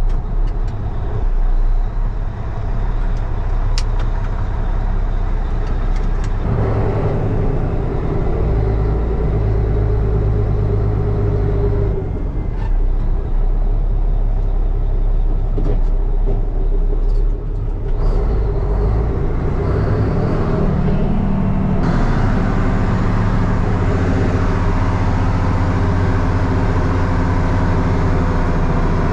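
Ex-army Mack truck's diesel engine running, heard from inside the cab while the truck is driven, its note shifting in pitch several times.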